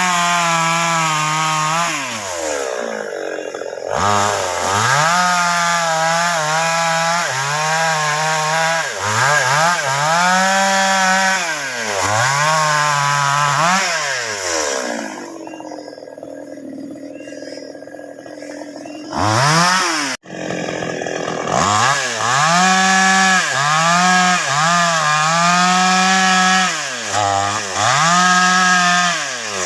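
Chainsaw engine revving up and falling back again and again while cutting baros timber. It drops to a quieter, lower running for a few seconds about halfway through, cuts out abruptly for a moment, then revs up and down again.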